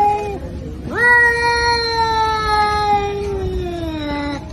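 Domestic cat meowing: a held call ends just after the start, then about a second in comes one long drawn-out meow that rises quickly and slowly falls in pitch for about three and a half seconds.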